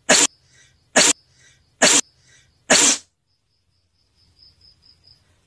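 Four short, forceful blasts of breath from a person, like coughs, evenly spaced about a second apart, with faint puffs between them.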